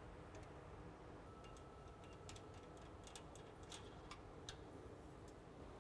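Near silence with faint, irregular metallic clicks and ticks as a B-nut fitting on a jet engine's fuel manifold line is worked loose, over a low steady hum.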